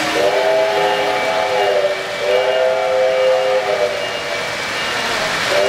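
Electronic sound-system steam whistle of an O-scale model locomotive blowing a chime chord in two long blasts, a third starting near the end. Under it runs the steady rumble of model trains on three-rail track.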